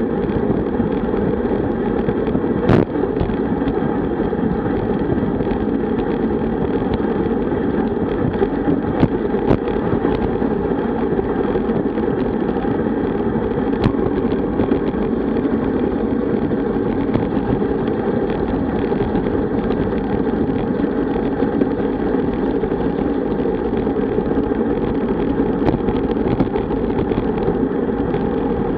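Steady rush of wind over a bicycle-mounted camera's microphone, mixed with road-bike tyres humming on asphalt at around 45 km/h. A few sharp clicks break through now and then.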